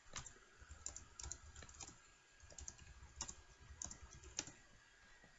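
Faint typing on a computer keyboard: a dozen or so light, irregular key clicks.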